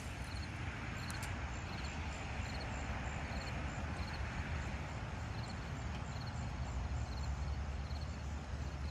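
A buzzbait being cranked back on a baitcasting reel, heard as a steady rushing noise over a low rumble. A faint high chirp repeats about twice a second throughout.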